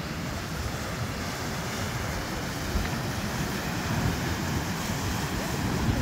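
Ocean surf breaking and washing over rocks, a steady rushing noise that swells a little toward the end, with wind buffeting the microphone.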